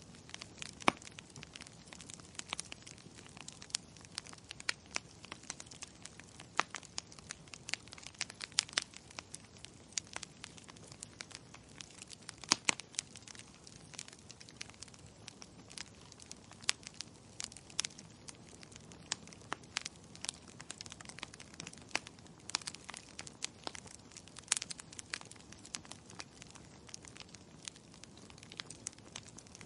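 Wood fire crackling: irregular sharp pops and snaps, some much louder than others, over a soft low rush of the flames.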